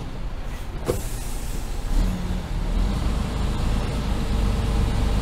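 Mercedes-Benz Actros tipper truck's diesel engine running, heard from inside the cab, with a sharp click about a second in. The engine gets louder from about two seconds in.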